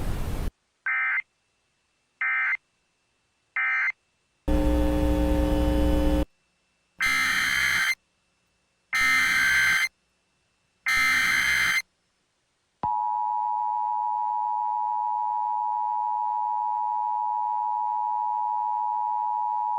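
Emergency Alert System data tones: three short end-of-message data bursts about a second apart, then a harsh buzz of nearly two seconds, then three one-second header data bursts. About 13 seconds in, the steady two-tone EAS attention signal begins.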